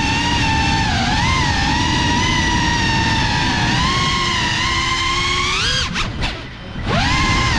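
FPV quadcopter's brushless motors whining under throttle, the pitch wavering up and down with each stick input, over a rushing noise from the propellers. Near the end the pitch climbs sharply, then drops away as the throttle is cut, going much quieter for about a second before the motors spool back up.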